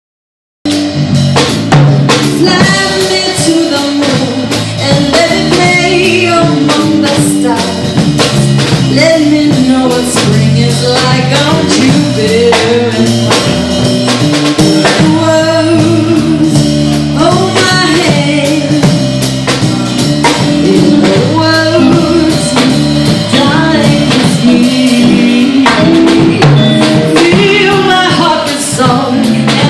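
Live band music: a woman singing into a microphone over keyboard, guitar and a drum kit keeping a steady beat, starting about half a second in.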